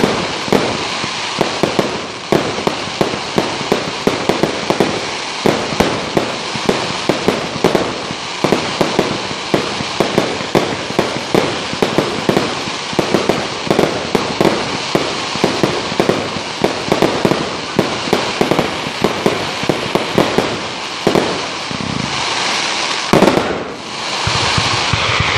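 Consumer fireworks cake firing a rapid, irregular string of shots that burst into glittering, crackling stars, several pops and bangs a second over a continuous crackle. In the last few seconds the pops thin out and a louder, steady hiss takes over.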